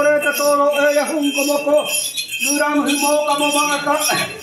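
Small bells jingling steadily over a group chanting a Donyi-Polo prayer on long held notes; the chant breaks briefly about halfway through and then resumes.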